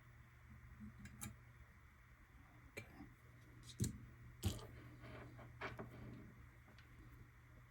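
Scattered light clicks and taps of small parts and tools being handled on a workbench, about five in all, the loudest two a little under 4 s and about 4.5 s in, over a steady low hum.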